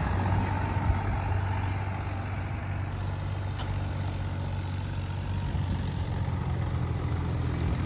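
Tractor diesel engine running steadily, a low, even hum that grows a little louder near the end.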